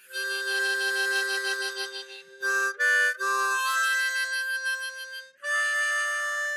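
Harmonica playing held chords, with a quick run of chord changes about two and a half seconds in and a new, higher chord near the end.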